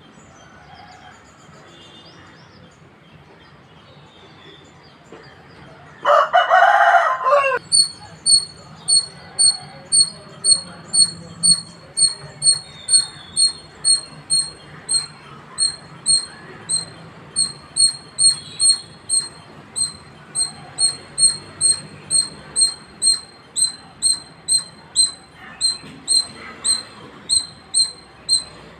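Squirrel calling with a steady series of short, high-pitched chirps, about two a second. Before the chirps start, about six seconds in, there is one loud, harsh call lasting a second or so.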